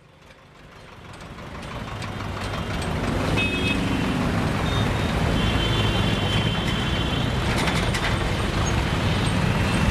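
Dense road traffic noise fading in over the first three seconds, then steady: a rumble of engines with short car horn toots now and then.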